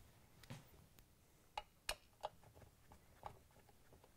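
Faint, irregular clicks and ticks of a Phillips screwdriver working the screws out of a KitchenAid stand mixer's metal housing cover, with a few sharper ticks about two seconds in.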